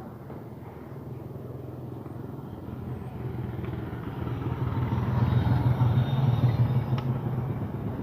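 Engine of a passing motor vehicle, a low steady hum that grows louder to a peak about five to six seconds in and then eases off. A light click about seven seconds in.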